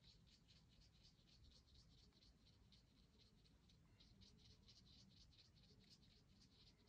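Faint, quick strokes of a watercolour brush pen tip across card, about five a second, with a short pause about three seconds in.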